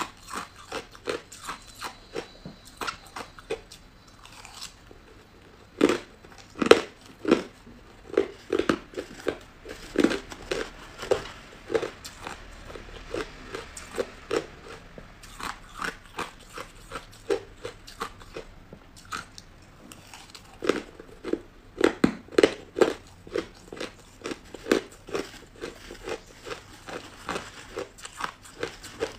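Crushed ice being bitten and chewed close to the microphone: runs of sharp, crisp crunches several a second. The crunching eases off briefly a few seconds in and again about two-thirds of the way through.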